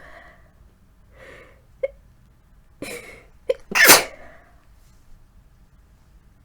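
A woman with a head cold sneezing: one loud sneeze about four seconds in, after a couple of short breaths.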